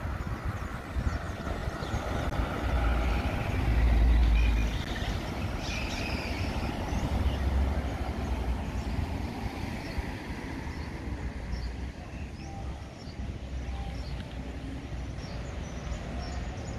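Street traffic: motor vehicles running past, with a low rumble that swells and is loudest about four seconds in, then settles into a steadier background hum.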